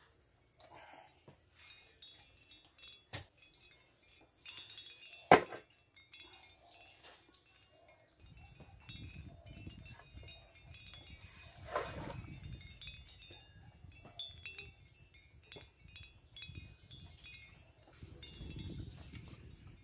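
Hands handling bunches of bananas and a carved wooden bowl: scattered light knocks and rustles, with one sharp knock about five seconds in. Many faint short high-pitched notes sound in the background, and a low rumbling noise comes in about eight seconds in.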